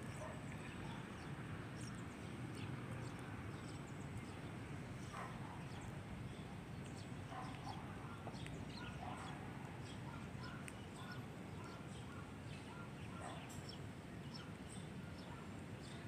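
Faint open-air city ambience: a steady low rumble with scattered short chirps and small clicks throughout.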